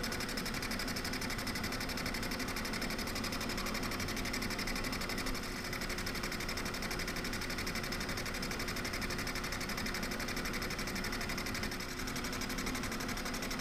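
Milling machine running steadily, its spindle turning a boring head on slow power feed as it takes a light finishing cut of a tenth of a millimetre in brass.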